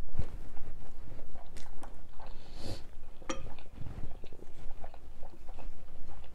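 A person's stomach and bowels digesting after a meal: irregular small gurgles and pops, with two short squeaky gurgles near the middle.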